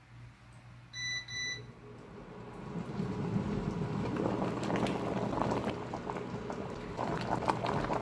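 Two short electronic beeps from the induction cooktop about a second in. Then water boiling hard in the covered stainless steel pot, a bubbling, hissing steam noise that builds up and stays steady.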